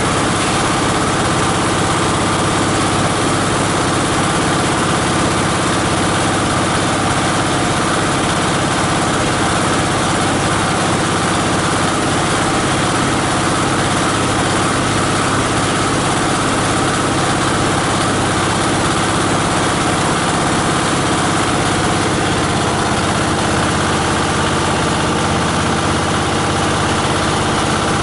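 18 HP diesel engine of a multi-blade plastic-and-paper grinder running steadily, a loud, even drone with no let-up.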